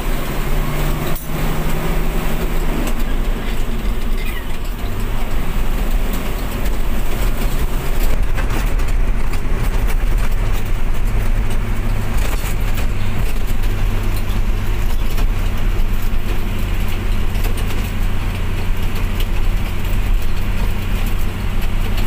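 Logging truck's diesel engine running under way, heard from inside the cab, with a low steady drone whose note shifts in the first few seconds and then holds. Sharp knocks and rattles from the truck jolting over a rough dirt road run through it.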